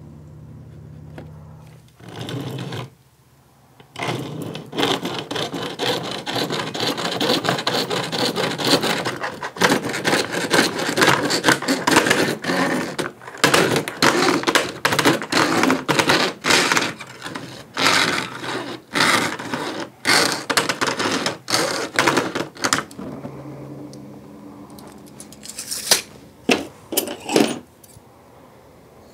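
Small hand hacksaw cutting a white plastic side-panel strip from a window air conditioner, in quick back-and-forth strokes. The sawing starts about four seconds in and stops a few seconds before the end. Near the end come a few sharp snips of scissors.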